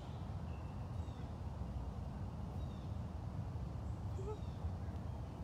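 Outdoor ambience: a steady low rumble with faint, short bird chirps every second or so, and one brief faint call about four seconds in.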